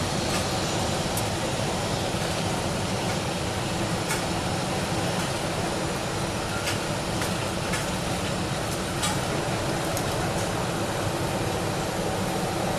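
Kobelco SK200 hydraulic excavator running steadily as it digs and swings a load of earth over a dump truck, with a few sharp clanks.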